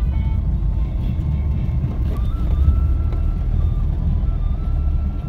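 Steady low rumble of a car's engine and tyres heard from inside the cabin while driving, with background music carrying a thin melody over it.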